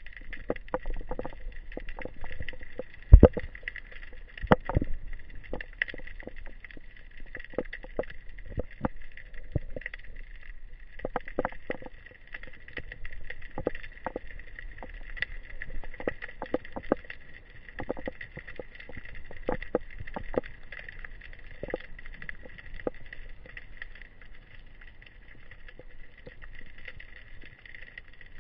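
Underwater sound picked up by a diving camera: a steady high hiss with irregular clicks and knocks scattered through it. The loudest knock comes about three seconds in.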